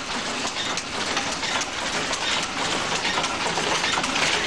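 Foot-treadled tweed loom running, a dense, steady mechanical clatter of the shuttle and beater working.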